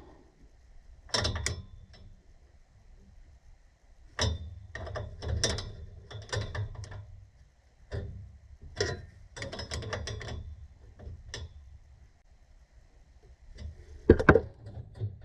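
Hand tools working on a furnace gas valve and its fittings during installation of the replacement valve: bursts of metallic clicking and rattling, with short pauses between them and a sharp, loud clatter near the end.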